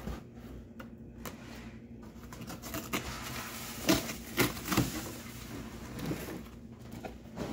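Cardboard packaging rustling and sliding as it is handled and pulled off stacked plastic cart trays, with several light knocks of the plastic in the middle.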